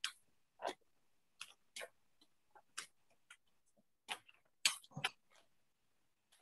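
Light, irregularly spaced clicks and taps of handling as a varnish brush is brought to a fly held in a tying vise, the loudest couple about five seconds in.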